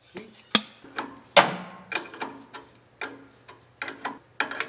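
Irregular metal clinks and knocks of tools and fittings as fuel lines are being reattached, with one louder ringing knock about a second and a half in.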